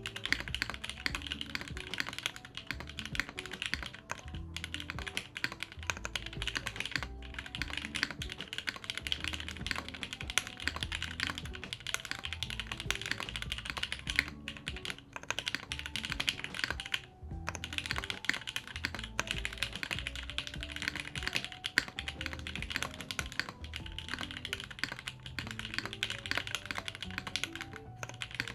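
Continuous fast typing on a plateless, gasket-mounted 60% mechanical keyboard with Cherry Vintage Black linear switches and GMK keycaps, broken by a few short pauses. Background music plays underneath.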